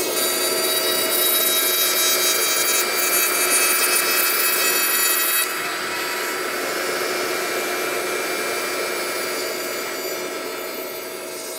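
CNC router spindle whining with several high steady tones while its bit cuts across a wooden board, the cut making a rough rushing noise. The level steps down about five and a half seconds in and slowly fades near the end.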